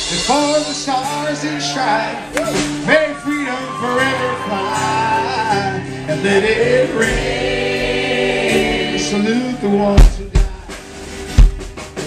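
Live band playing with singing over held guitar and bass chords; about ten seconds in, the drum kit comes in with hard hits.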